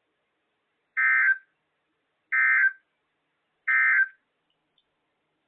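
EAS/SAME end-of-message data bursts: three short, identical bursts of buzzing digital tone, a little over a second apart, sent to close the severe thunderstorm warning broadcast.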